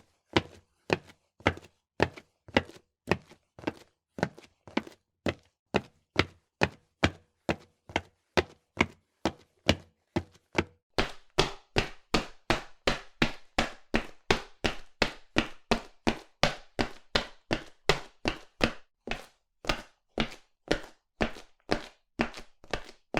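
Footsteps at a steady walking pace of about two steps a second, quickening to about three or four steps a second for several seconds about halfway through, then slowing to a walk again near the end.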